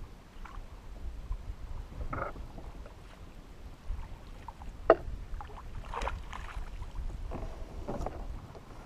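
Knocks and clatter of a landing net and fishing gear against a plastic fishing kayak as a bass is netted aboard, with one sharp, loud knock about five seconds in. Under it runs a low rumble of wind on the microphone.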